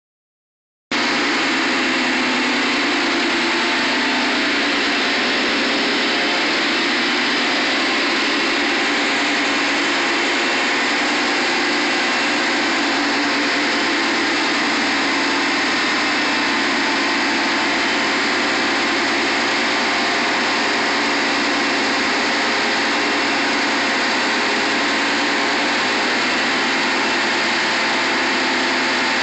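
1997 Nissan 240SX's stock 2.4-litre inline-four engine running steadily, not revving, on a chassis dyno, under a steady rushing hiss. It starts about a second in and holds level.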